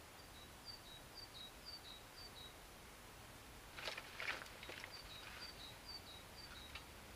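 A small songbird singing a repeated two-note phrase, a high note then a slightly lower one, about two phrases a second, in two runs. Between the runs, about four seconds in, a short burst of close rustling and crackling.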